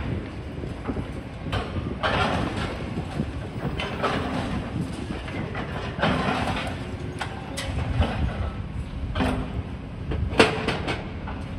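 Demolition excavators working: diesel engines running steadily under irregular metallic clanks and knocks from the machines and debris.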